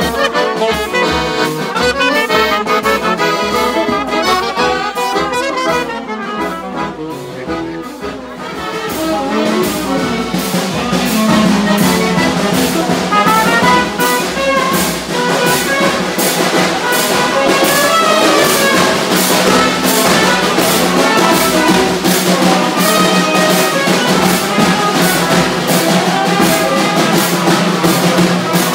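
A small band of chromatic button accordion, trumpet and saxophone playing a lively tune together. From about a third of the way in, a fast, even beat runs under the melody.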